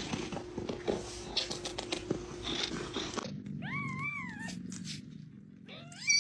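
A domestic cat meowing: one meow that rises and falls about three and a half seconds in, then a louder call near the end. Before the meows there are a few seconds of rustling noise with clicks.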